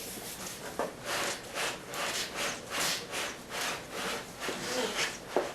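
Styrofoam packing rubbing and scraping against the cardboard box as a flat-screen TV is wedged out of it, in rasping strokes about three a second, with a couple of sharper knocks near the end.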